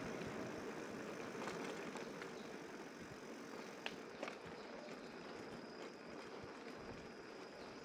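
Steady rushing noise of riding a bicycle along a paved path, wind and tyre noise, with a couple of sharp clicks about four seconds in.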